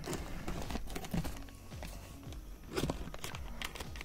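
Scissors cutting into a plastic bag wrapped around a box, the plastic crinkling and rustling irregularly as it is pulled and snipped.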